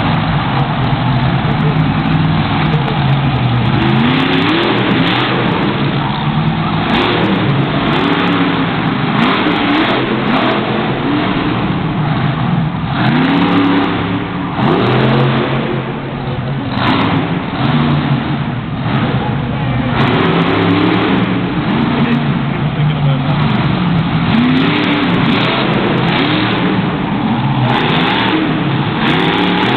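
Monster truck engine revving hard in repeated bursts, each rev rising and falling in pitch every couple of seconds, over the steady noise of a packed arena.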